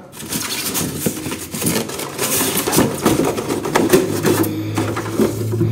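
Styrofoam packing blocks being worked off a mini fridge, scraping and squeaking against each other and the cabinet in a dense run of rough rubbing strokes.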